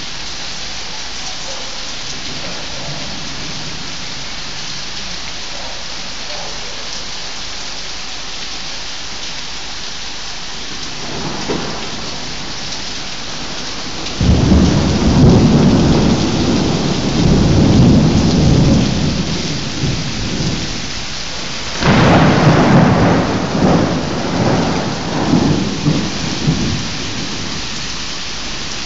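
Heavy rain falling steadily during a thunderstorm. A long roll of thunder breaks in suddenly about halfway through and rumbles for several seconds. A second, sharper clap comes a little over three-quarters through and rolls away in swells.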